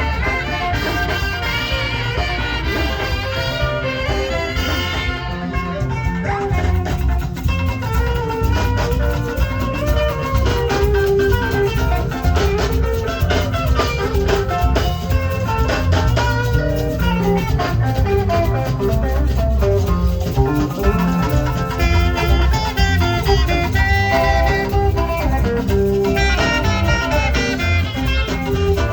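Saxophone playing a melody over a full backing track with a steady beat.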